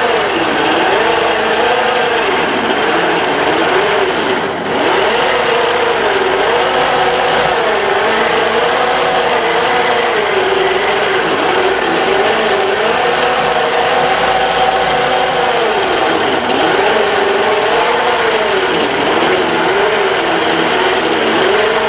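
Wood lathe running loudly. Its motor pitch sags and rises again every couple of seconds, with one brief dip in level about four seconds in.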